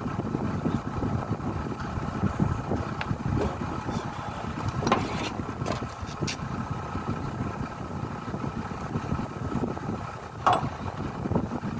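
Engine running at a steady idle, with a few sharp clicks or knocks over it.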